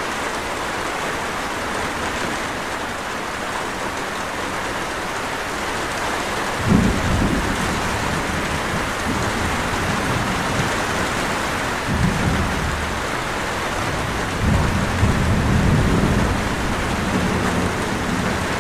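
Steady rain hiss with rolls of low thunder: one about a third of the way in, a shorter one past halfway, and a longer roll near the end.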